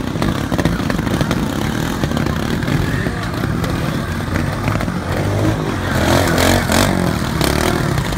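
Trials motorcycle engines running and revving in short bursts as riders climb over rocks, with a louder stretch of revving about six seconds in.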